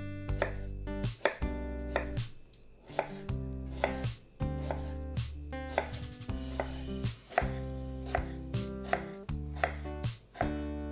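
A knife chopping vegetables on a cutting board in a quick series of irregular knocks, over background music.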